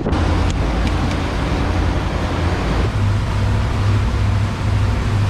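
Sport-fishing boat's engines running steadily under way, a deep hum under a hiss of wind and water; the engine note shifts slightly higher about three seconds in.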